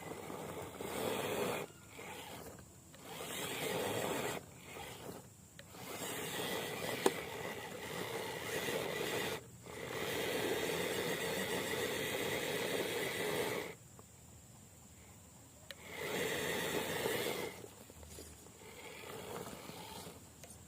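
Radio-controlled scale truck's electric motor and gearbox whining in repeated bursts of throttle, some short and some several seconds long, with brief pauses between.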